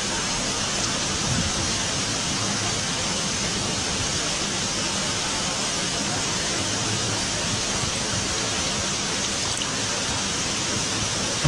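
Steady, even rushing hiss with no distinct events, like rain or strong noise on the microphone.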